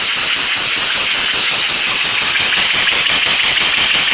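Homemade compressed-air piston engine running, with a loud steady hiss of air and a fast, even rattle of its moving parts and chain drive as the air pressure is turned up.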